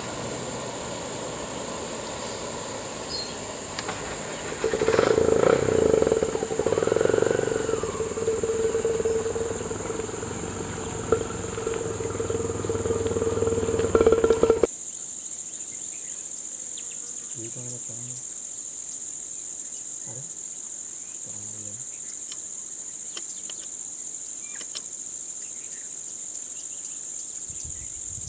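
Insects buzz at one steady high pitch throughout. For the first half, vehicle noise with a steady mid-pitched tone is louder on top of the buzz, and it cuts off abruptly about halfway. After that only the insect buzz remains, with a few faint low sounds.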